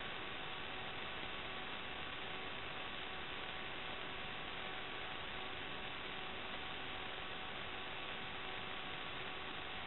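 Steady electrical hiss with a faint constant hum from the recording chain, not sound from the scene. It does not change while the quadcopter climbs, so the motors are not heard.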